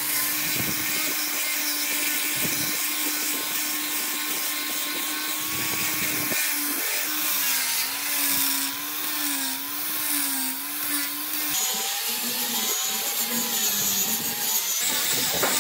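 Angle grinder fitted with a sanding disc, running and sanding across wooden planks: a steady motor whine over the hiss of abrasive on wood. The pitch wavers as the pad is pressed and moved, and shifts lower about two thirds of the way through.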